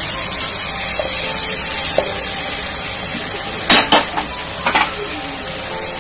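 Spiced tomato masala sizzling steadily in a non-stick pan as boiled mustard greens are added and stirred with a wooden spatula. The spatula knocks and scrapes against the pan a few times a little past the middle.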